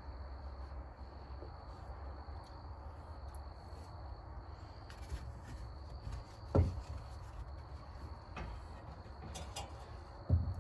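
Two dull thuds about four seconds apart as a homemade split PVC-pipe seal driver is dropped down the fork tube onto the new fork seal, tapping it into a 1996 Honda XR250R fork leg. A low steady hum runs underneath.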